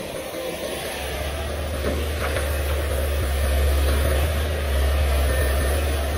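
Komatsu PC500LC excavator's diesel engine working under load, a steady low drone that grows heavier about a second in as the machine lifts and swings a full bucket of soil.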